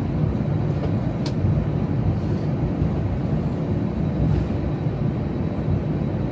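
Steady low rumble inside an airliner's cabin as it pushes back from the gate, with one short click about a second in.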